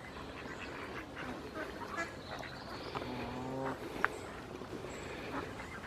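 Geese and ducks calling and chattering close by, with many short calls and scattered sharp clicks. One longer, drawn-out pitched call comes about three seconds in.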